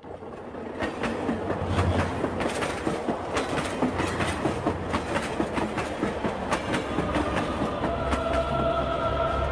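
Intro sound for an animated logo: a rhythmic rattling clatter over a low rumble, pulsing about three times a second and rising quickly from silence at the start. Near the end, sustained musical notes enter over it.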